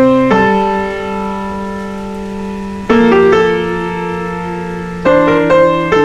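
Background piano music: chords struck about every two to three seconds, each ringing out and fading, with a quicker pair of chords near the end.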